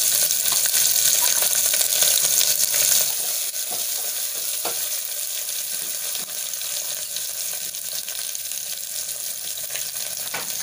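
Sliced onions sizzling in hot oil and ghee in an aluminium pressure cooker as they are stirred. The sizzle is a steady hiss that settles a little about three seconds in.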